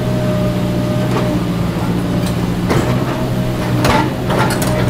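Kobelco SK200 hydraulic excavator's diesel engine running steadily under load, with a steady whine above it, as the bucket digs into the ditch bed and lifts a load of wet mud. Several knocks and scrapes of the bucket come in the second half.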